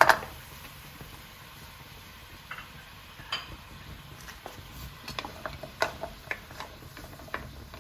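Scattered light clicks and taps of a spoon against a pan while jaggery and water are stirred to melt, growing more frequent in the second half.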